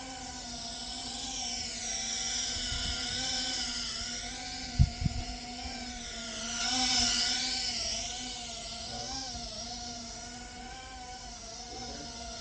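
GEPRC Phantom FPV quadcopter's brushless motors and propellers whining in flight, the pitch wavering up and down with the throttle and swelling loudest about seven seconds in as it passes close. Two short low thumps come about five seconds in.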